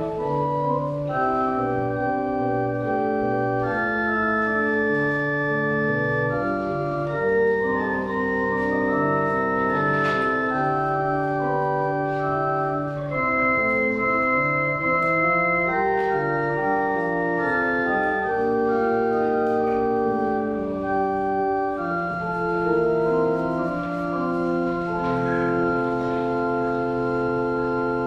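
Church organ playing a slow piece of sustained chords, the notes held steady and changing in blocks, settling on a long held chord near the end.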